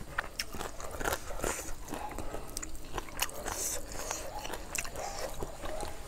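Close-up eating sounds: two people chewing and crunching mouthfuls of green papaya salad and chicken, an irregular run of short crunches and chews.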